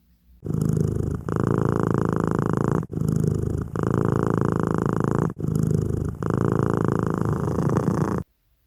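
Domestic cat purring loudly in long stretches broken by short pauses every second or two. The purring starts about half a second in and cuts off suddenly near the end.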